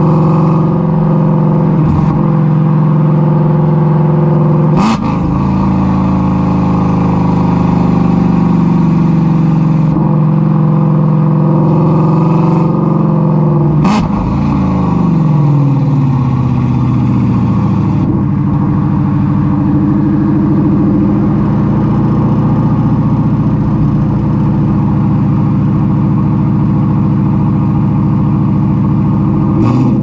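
2016 Shelby GT350's 5.2-litre flat-plane-crank V8 with long-tube headers and straight pipes, running loud under way. There is a sharp crack with a quick change in engine pitch about five seconds in and again about fourteen seconds in, after which the revs fall away and then settle.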